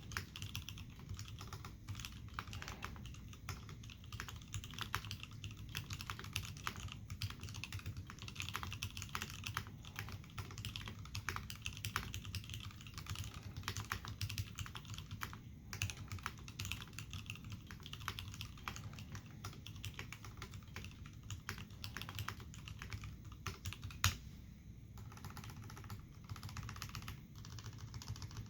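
Continuous typing on an Iron180 mechanical keyboard with lubed, filmed Hirose Cherry MX Clear tactile switches, Cherry dye-sublimated keycaps, a forged carbon-fibre plate and a brass bottom. It is a steady run of keystroke clacks, with one sharper, louder clack a few seconds before the end.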